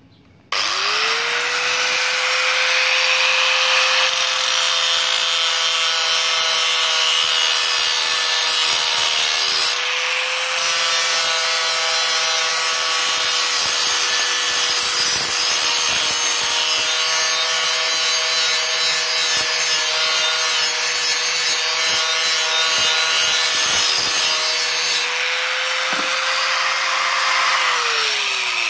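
Electric angle grinder with an abrasive disc starting up about half a second in and grinding the galvanized zinc coating off a steel plate: a steady motor whine under a harsh grinding hiss. Near the end it is switched off and winds down, its pitch falling.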